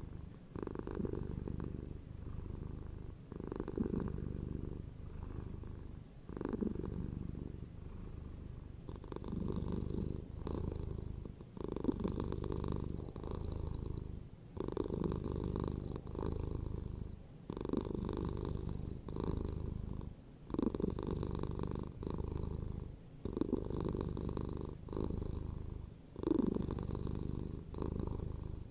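Domestic cat purring: a continuous low rumble that swells and dips with its breathing, about every two seconds.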